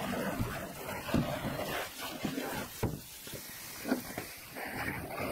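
Garden hose spraying water onto a plastic kayak hull, rinsing it off: a steady hiss of spray that drops away about three seconds in and picks up again near the end, with a few light knocks.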